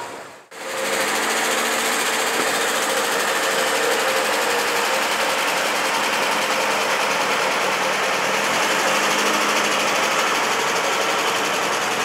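Classic car engine running steadily at close range, an even mechanical note that keeps the same pitch throughout; it comes in after a brief gap near the start.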